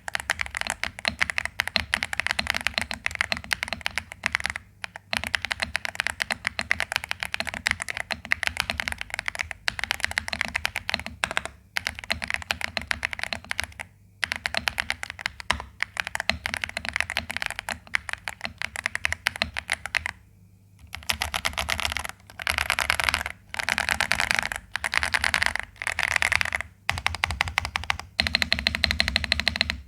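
Vortexseries XERA Series 87 mechanical keyboard with stock Outemu Jade White switches being typed on: a fast stream of keystroke clicks with short pauses every few seconds. In the last third the typing comes in separate bursts of about a second each.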